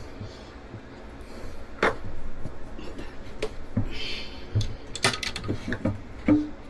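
Scattered knocks and clicks of wooden floor and bed panels being handled and moved, with a rustling scrape about four seconds in.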